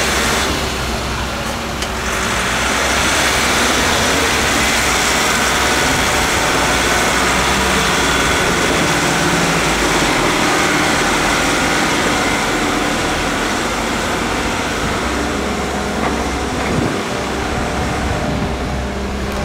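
Diesel engine of a small TMT Cửu Long dump truck, loaded with sand, running steadily as the truck drives off.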